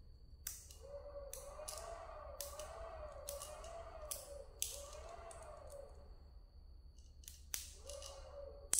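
Battery-powered electric fish-shocking inverter giving a faint warbling whine that rises and falls about once a second, broken by sharp clicks and snaps as its clamps are clipped onto the 12 V battery terminals. The whine drops out for a moment and returns near the end.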